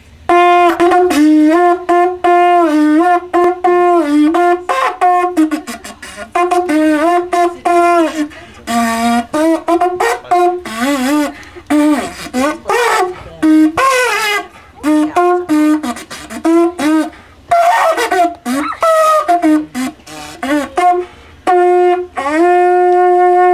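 Conch shell trumpet blown in a long run of short honking notes that bend in pitch, dipping lower for a moment near the middle, then ending on one long held note.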